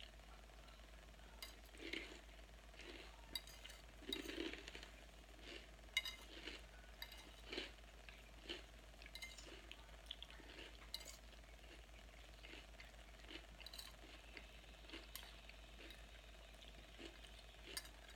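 Faint crunching and clicking of someone eating a crunchy salad, coming at irregular intervals about once or twice a second.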